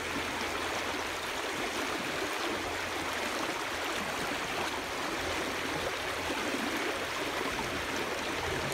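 Fast river current rushing steadily and splashing over a cloth net held down in the flow.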